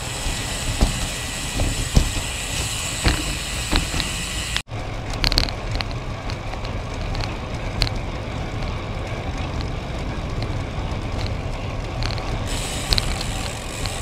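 Cervelo Caledonia road bike rolling along: a steady rush of wind and tyre noise, with scattered light clicks. The sound drops out sharply for an instant about a third of the way in, then carries on a little duller.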